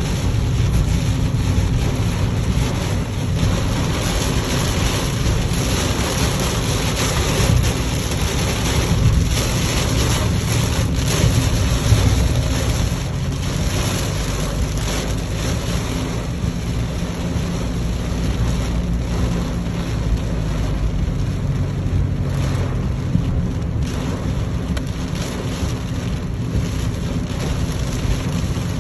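Heavy rain on a 2021 Mitsubishi Mirage's roof and windshield, heard from inside the cabin while driving, over a steady low road rumble and the noise of its Vredestein Quatrac tyres on the wet road.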